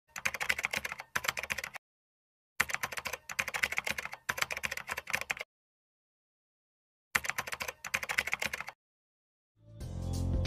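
Keyboard typing sound effect: three runs of rapid keystrokes with silent gaps between them, keeping time with on-screen text being typed out. Music starts just before the end.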